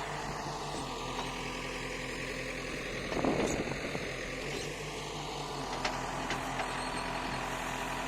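Kirloskar diesel engine of a Bobcat backhoe loader idling with a steady, even low pulse. About three seconds in, a brief louder rush of noise rises over it.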